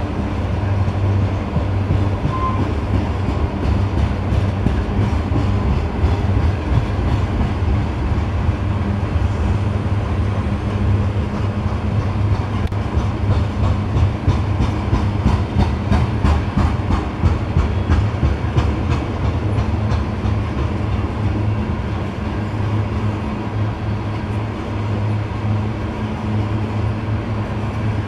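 A BNSF coal train's hopper cars rolling past with a steady rumble, steel wheels clicking over the rail joints, the clicking thickest about halfway through.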